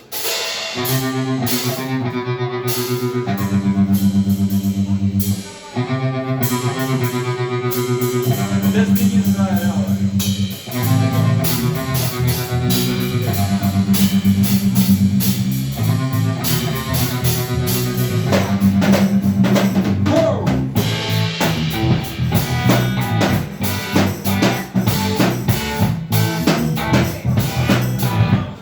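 Instrumental intro of a rock song: guitar and bass over a drum kit, with a brief drop about five seconds in and again near ten seconds.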